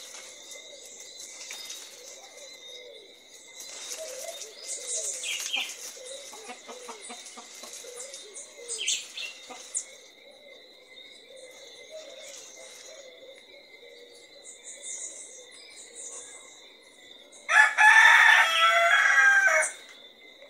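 Domestic chickens: a hen clucking low and softly while she forages with her chick, then a rooster crowing once, loudly, for about two seconds near the end. A steady high whine runs underneath.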